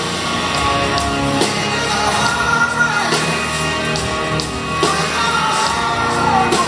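Live rock band playing a song: a male singer's voice over electric guitar and drums, loud and continuous, with the echo of a large hall.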